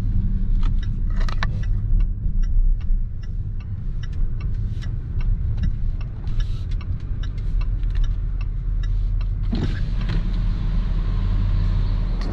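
Steady low rumble of a car's engine and tyres heard from inside the cabin as it drives slowly, with a run of light, fairly regular ticks. About three-quarters of the way through a steady hiss comes up as the car rolls into a parking garage.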